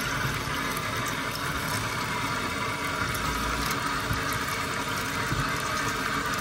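Kitchen tap running steadily into a bowl of raw lamb pieces in a stainless steel sink, with a hand rubbing and swishing the meat through the water as it is washed.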